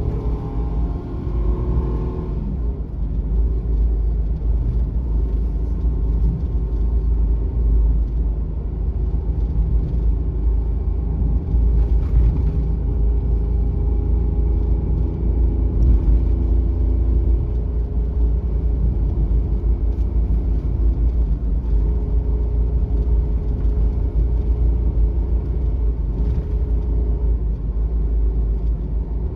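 Suzuki Every kei van driving, heard from inside the cab: its 660 cc three-cylinder engine and road noise make a steady low rumble. The engine note rises in the first couple of seconds, then shifts up and down with the throttle.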